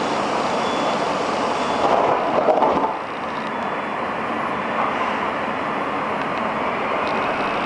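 Steady cabin noise inside a Moscow Metro 81-760/761 'Oka' subway car, with the doors sliding shut about three seconds in, after which the sound drops sharply. Near the end a faint rising whine begins as the train starts to pull away.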